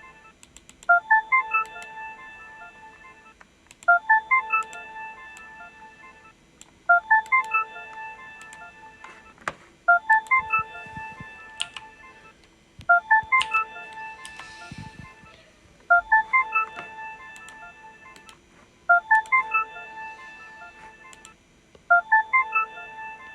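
An electronic ringtone-style jingle: a quick run of about five beeping notes, repeated about every three seconds, eight times over.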